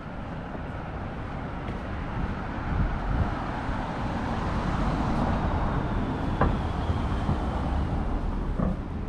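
A road vehicle passing: its tyre and engine noise swells to a peak about five seconds in and then eases off. A sharp click sounds about six seconds in.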